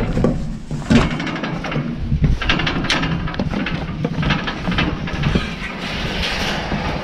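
Footsteps knocking on the wooden treads of a fire tower's steel-framed stairway while going down, over a steady low rumble of wind buffeting the microphone.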